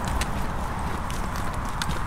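Hiking boots stepping on a stony path, irregular crunching footfalls over a low rumble.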